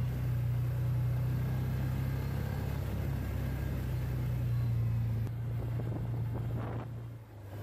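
An ATV's engine runs at low road speed with a steady low hum. It eases off about five seconds in and drops further near the end as the machine slows.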